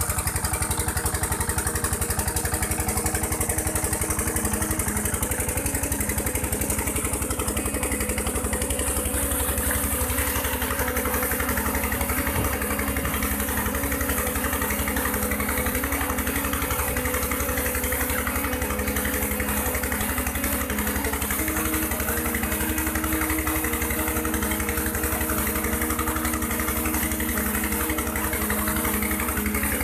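Small stationary diesel engine running steadily, belt-driving a tube-well water pump, with an even chugging pulse. From about a third of the way in, the rush of water pouring from the pump's discharge pipe into a concrete channel joins it.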